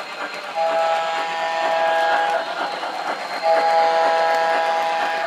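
MTH Blue Comet O-gauge model steam locomotive, running with a Daylight sound file, sounding two long steam-whistle blasts from its onboard speaker as it rolls past. Under the whistle is the steady rolling of the model's wheels on the track.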